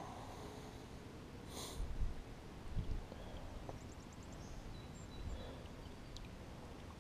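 Quiet water lapping and splashing at a kayak's side where a large brown trout is held in the water to revive it, with a short splash about a second and a half in. Two low thumps follow, at about two and three seconds in.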